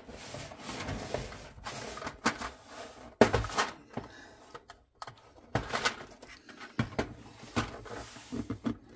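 White stackable plastic storage boxes with drawers being handled and fitted together on a table: a string of hard plastic knocks, clicks and scrapes, the loudest about three seconds in.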